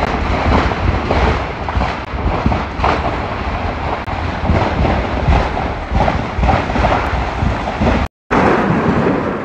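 Loud, continuous rumbling roar with a heavy low rumble and no voices, cutting out for a moment near the end.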